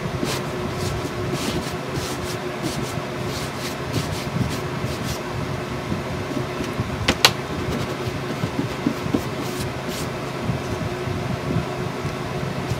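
Permanent ink pad dabbed and rubbed over a painted chipboard box: a run of soft, irregular taps and scuffs, with one sharper click about seven seconds in, over a steady low hum.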